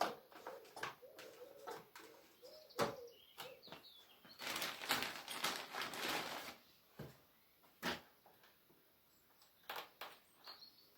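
A dove cooing, a repeated phrase through the first three or so seconds, among sharp clicks and knocks. About four seconds in comes a couple of seconds of loud rasping, scraping noise.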